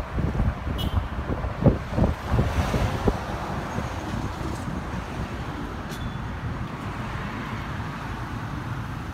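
Road and traffic noise heard from a moving vehicle, with wind buffeting the microphone in rumbling gusts for the first three seconds, then settling to a steadier rush.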